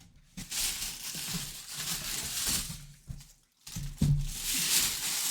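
Plastic packaging rustling and crinkling as a full-size football helmet is unwrapped and handled, in two stretches with a brief pause a little past the middle.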